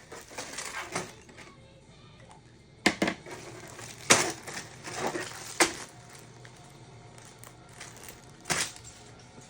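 LEGO bricks being pulled apart and dropped, sharp plastic clicks and clatter, loudest about three, four, five and a half and eight and a half seconds in.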